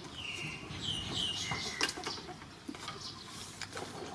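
A few short, high-pitched animal chirps, the third a little lower than the first two, over faint clicks and taps.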